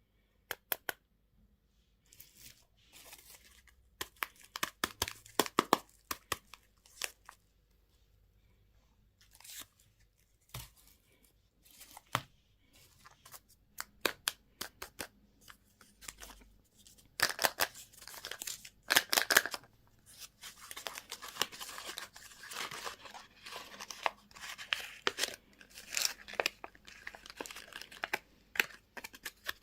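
Candy and toy packaging being torn open by hand: irregular tearing and crinkling of wrappers with scattered sharp clicks, busiest in the second half.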